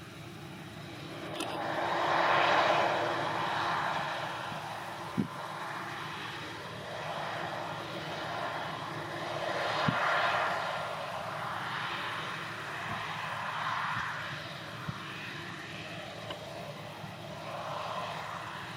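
Claas Lexion 540 C combine harvester running while harvesting barley: a steady engine and machinery drone that swells and fades several times, with a few short sharp knocks.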